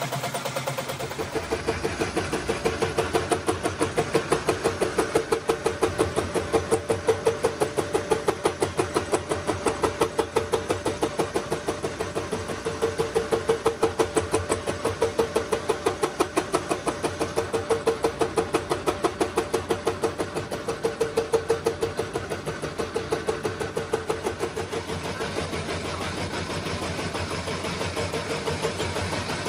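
A milling machine's face cutter cutting the end of a steel hydraulic-breaker chisel: a steady, rapid, even pulsing chatter with a strong hum as the cutter bites into the steel. It grows louder about two seconds in and eases off near the end.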